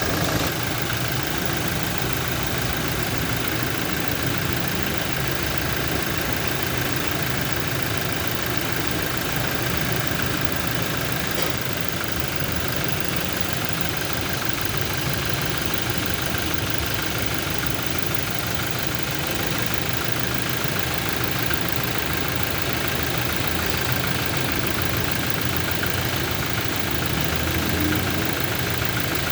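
Toyota Innova turbodiesel engine idling steadily with its top cover off. The mechanic traces the engine's internal knocking to cylinders 2 and 4 and to injectors that no longer atomise their spray, and says the knock is hard to hear without a stethoscope.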